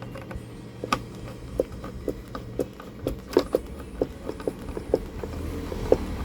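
A screwdriver driving a screw into an undersized hole in a circuit board, so the screw cuts its own thread: small irregular clicks and knocks, a couple to a few a second, over a faint steady hum.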